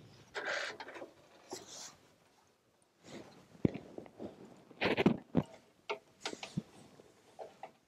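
Aerosol can of expanding spray foam hissing in two short bursts as foam is squirted into a van's sliding-door cavity. From about three and a half seconds in come a series of sharp knocks and taps as the can and hands work against the sheet-metal door.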